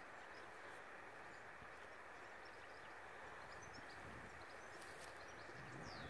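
Faint outdoor countryside ambience: a steady low hiss with a few short, faint bird chirps in the second half.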